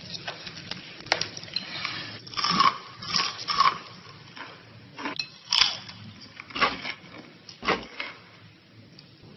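A person biting and chewing crunchy food close to the microphone: a string of irregular crunches.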